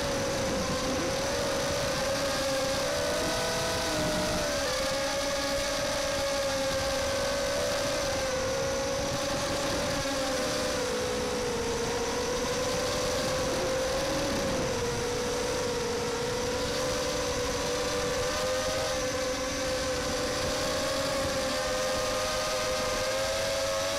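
Motors and propellers of an MXP230 FPV quadcopter, heard from its onboard camera: a steady whine whose pitch rises and falls gently with the throttle.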